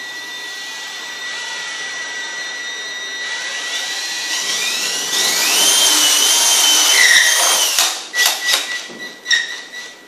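Power drill pre-drilling holes through a metal wall plate into drywall: the motor whine climbs in pitch as it speeds up, runs at full speed for a few seconds, then stops and gives a few short bursts near the end.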